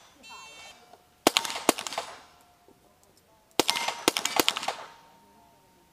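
A short electronic shot-timer beep, then a quick string of pistol shots about a second in. After a pause of about a second and a half comes a second quick string, the shooter having moved to the second box, with the steel plates ringing after the hits.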